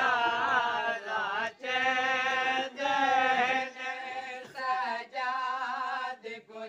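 Unaccompanied male chanting of a noha, a Shia lament, sung in long held notes that waver and slide in pitch, with short breaths between phrases.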